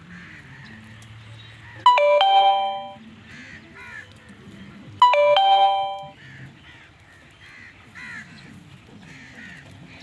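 A bell-like chime of a few stepped notes, like a doorbell or phone alert, sounds twice about three seconds apart, each ringing out for about a second. Faint bird chirps run underneath.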